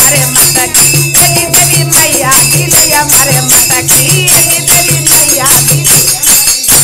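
Folk devotional music without singing: a dholak drum beating under small brass hand cymbals (manjira) clashing in a quick, even rhythm of about four strokes a second.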